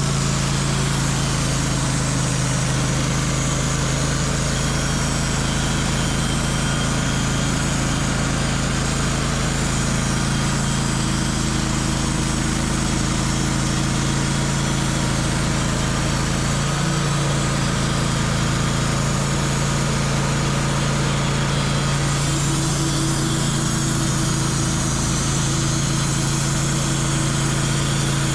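Engine running steadily at an even speed, with no change in pitch.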